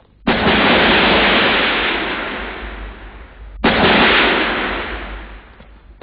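Two explosions a little over three seconds apart. Each starts suddenly and rumbles away over a couple of seconds.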